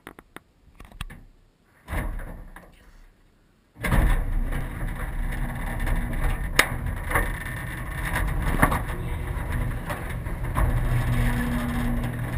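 Garage door rolling up, starting about four seconds in with a steady rumble and rattle and several sharp clanks as it rises; a few clicks and a short thump come before it starts moving.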